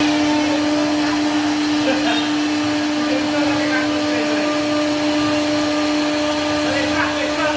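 CNC router spindle running at speed with a steady high whine while its bit carves a relief pattern into a solid wood door panel.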